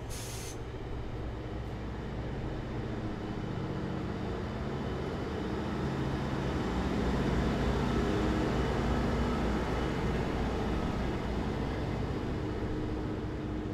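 GO Transit diesel-electric locomotives (unit 562) running past at close range with a steady engine rumble that swells to its loudest around the middle and then eases off. There is a short hiss right at the start.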